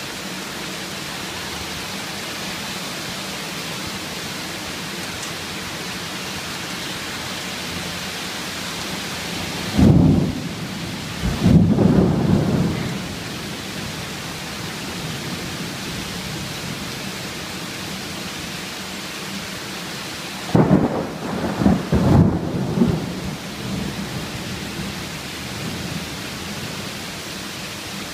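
Heavy rain falling steadily, with two claps of thunder, one about ten seconds in and one about twenty seconds in, each rumbling on for two or three seconds.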